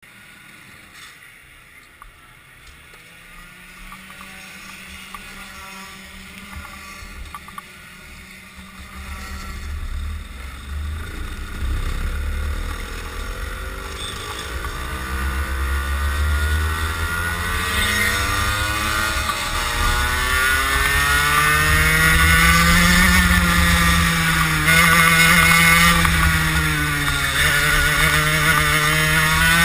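Kart engine heard onboard: a quiet steady idle at first, then from about nine seconds in it pulls away and revs up. Its pitch climbs and falls repeatedly with throttle and lifts, getting louder as the kart gets up to speed on track.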